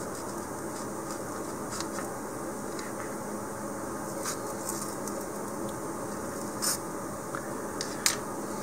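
Bamboo skewers being handled in a styrofoam ball on a cutting mat: faint scraping and a few short ticks, the sharpest near the end, over a steady background hiss and hum.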